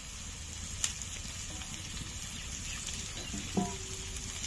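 Masala of onion, ginger-garlic, chilli and cumin paste frying in oil in a pan, a steady faint sizzle. A sharp tap comes a little under a second in, and a brief pitched sound about three and a half seconds in.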